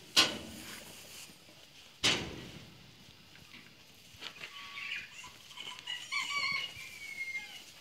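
Two sharp knocks about two seconds apart, then a small bird chirping in a run of short high notes from about four seconds in.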